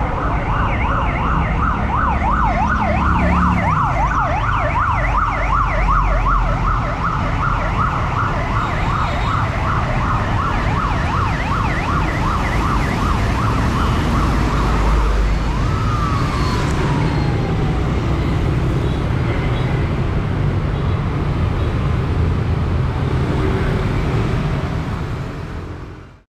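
A fast up-and-down warbling siren from a military police escort sounds over steady road traffic. About halfway through it winds down in one falling glide, leaving the engines and traffic noise of the passing convoy, which then fade out at the end.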